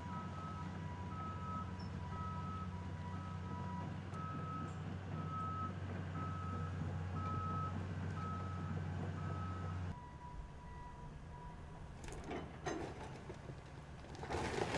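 Diesel demolition excavator running, with a backup alarm beeping steadily about once every 0.8 s. About two-thirds in, the alarm stops and the engine drone drops. Near the end comes a loud burst of clattering as the bucket works the brick wall.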